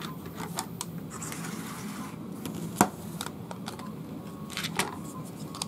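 Magnetized plastic dungeon tiles clicking and clattering as they are handled and set down, with a sharp click a little before the middle and a few more near the end.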